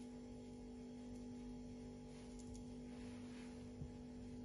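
Quiet room tone under a steady low electrical hum, with one faint short click near the end.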